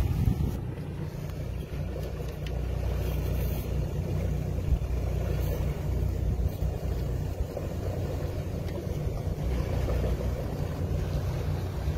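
Twin Mercury Verado 600 V12 outboard engines on a rigid inflatable boat running steadily at low speed, a constant low rumble.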